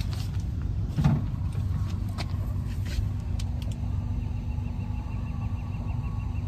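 A motor running with a steady low hum while a flat pickup tyre is filled with air. A few light clicks are heard, and a faint rapid ticking joins about four seconds in.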